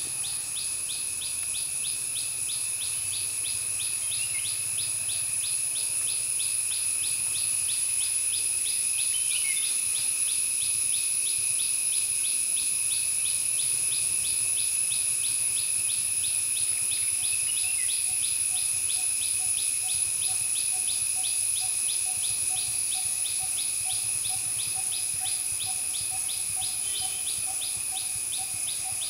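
Forest insect chorus: a continuous high shrill drone with a fast, even pulsing trill over it, and from about two-thirds of the way through a fainter, lower pulsing call joins in. A few short bird chirps come through now and then.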